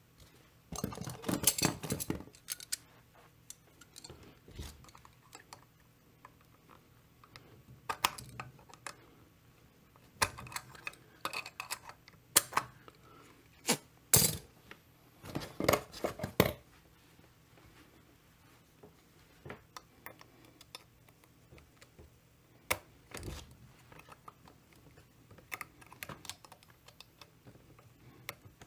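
Small metal chainsaw clutch parts and hand tools clicking and clattering on the clutch drum and workbench, in irregular bursts with quiet gaps between.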